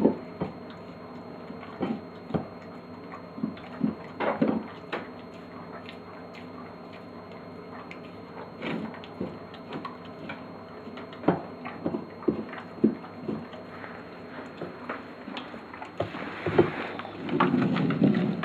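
Flat-coated retriever eating soft food from a glass bowl on the floor: irregular licking and chewing, with the bowl clicking and knocking now and then. A louder rustle comes near the end.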